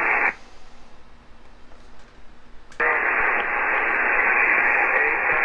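Receiver hiss from the loudspeaker of an Icom IC-M700 marine HF SSB radio. It cuts out abruptly a fraction of a second in as the squelch closes, stays quiet for about two and a half seconds, then snaps back on as the squelch opens again on the band noise.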